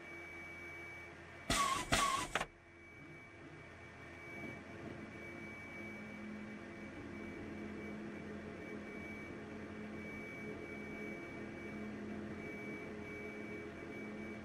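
Steady electrical hum and low whine in the cockpit of a stationary Porsche 919 Hybrid race car, a low tone building up from about four seconds in. A brief loud double burst of noise about a second and a half in.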